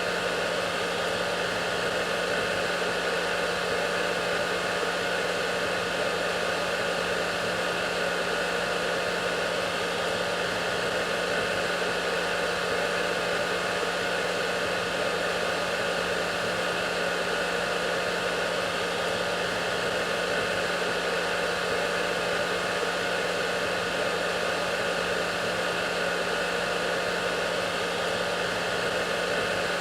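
Hair dryer running steadily: an even rushing blow with a steady low hum and a few faint steady whine tones over it, never changing.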